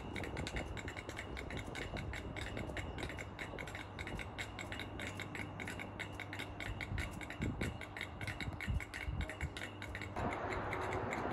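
Class 85 electric locomotive standing with its pantograph up, its transformer humming steadily, with a fast, even ticking buzz above the hum. About ten seconds in a louder hiss joins.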